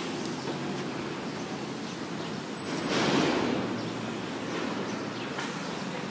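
Street traffic noise as cars drive past close by, one swelling louder as it passes about halfway through.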